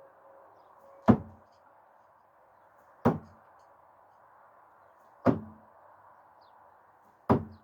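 Four thrown screwdrivers striking the target one after another: sharp thuds about two seconds apart.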